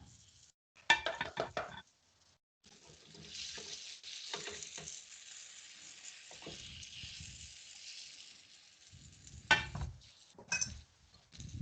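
Breaded chicken pieces frying in olive oil in a pan, a steady sizzle. A quick run of clinks and clatter of a utensil against the pan comes about a second in, and a few more sharp clinks near the end.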